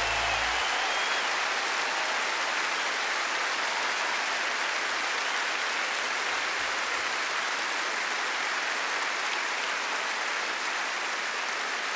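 Large arena crowd applauding steadily at the end of a song, the band's last low note dying away about half a second in.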